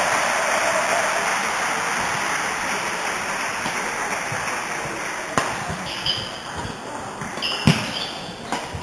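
Spectators applauding, dying away over the first few seconds. Then sports shoes squeak on the wooden badminton court, with a few sharp racket knocks about five and a half and seven and a half seconds in.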